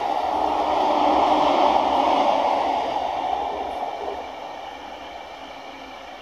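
Suburban electric commuter train passing on the line, its wheels running on the rails in a steady rumble that fades away from about three seconds in as the last cars go by.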